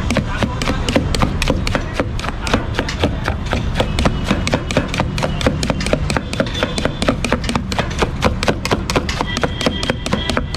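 A knife chopping quickly and steadily into watermelon flesh in a steel pot, about six strokes a second.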